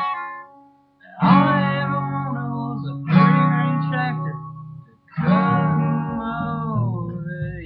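Gibson Dove acoustic guitar. A chord fades out, and after a brief pause three hard-strummed chords follow about two seconds apart, each left to ring and die away.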